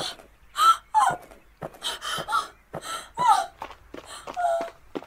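A person gasping and crying out in a rapid run of about ten short bursts without words, some falling in pitch.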